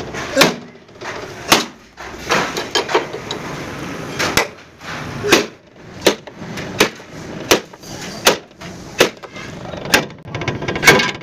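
Sledgehammer striking a chisel held against the tipper truck's steel body: more than a dozen sharp metal-on-metal blows in a steady rhythm, a little over one a second, each with a short ring.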